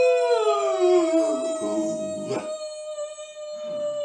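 Two people howling like wolves, holding the howl as long as they can. One voice slides down in pitch and gives out about two seconds in, while the other holds one steady note.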